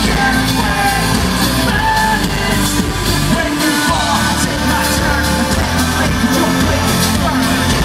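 Live rock band playing loud with a lead singer and a steady drum beat, heard from within the audience.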